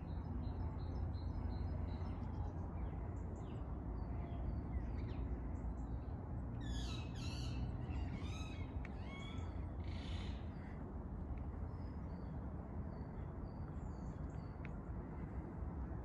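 Birds calling over a steady low rumble: a string of thin, high chirps, then a cluster of louder calls from about six to ten seconds in.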